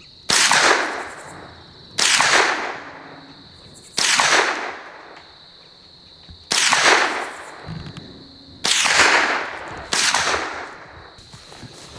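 Five .22 rifle shots, about two seconds apart, each sharp crack trailing off in an echo. Crickets trill steadily underneath.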